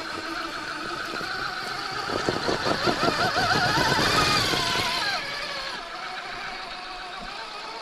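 Electric drive motor and gearbox of an Axial SCX6 Honcho RC rock crawler whining as it crawls over rock. The pitch wavers with the throttle, and the sound swells about two seconds in with rapid clicking before easing off around five seconds.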